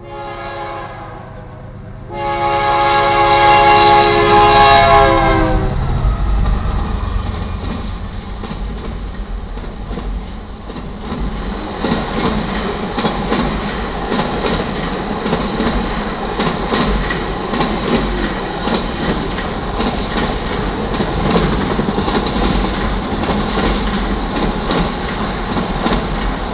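Horn of a GE C44-9W freight diesel locomotive sounding a chord, loud and close in a long blast that ends about six seconds in. Then the locomotives and a string of auto-rack freight cars roll past close by: a steady heavy rumble with wheels clicking over the rail joints.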